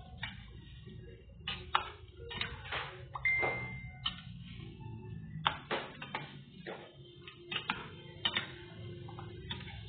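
A pot of chicken curry broth simmering on the stove, bubbling with irregular pops over a low hum. A brief high, steady tone like a beep sounds about three seconds in.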